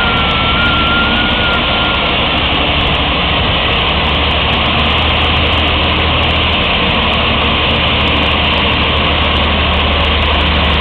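Heavy truck engine of a bitumen chip sealer running steadily as it creeps forward while surfacing the road. A thin whistle-like tone rides over it for the first two seconds.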